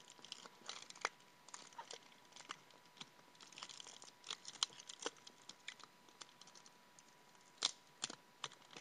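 A plastic hornworm cup and its paper-covered lid being worked open by hand: irregular small clicks, crinkling and tearing, with a sharper snap near the end.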